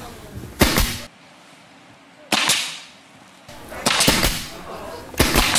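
Pneumatic nail gun firing several sharp shots into a wooden board, irregularly spaced a second or two apart, some in quick pairs. The gun fires at every spot: a nail goes in where the nail strip holds one, and only air where the strip has a gap.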